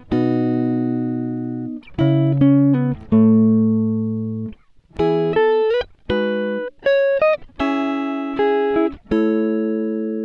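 Background music: a guitar, or a similar plucked-string instrument, playing a slow melody of separate notes and chords, each ringing out and fading.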